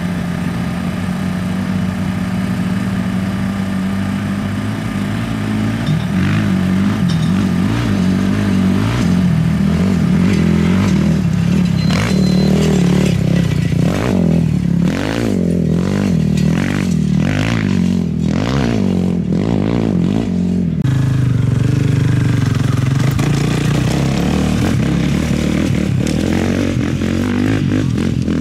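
An off-road racing quad's engine at speed: a steady note as it approaches, then revving up and down with gear changes and loose stones clattering as it passes close by. About two-thirds of the way in the engine note drops lower and holds.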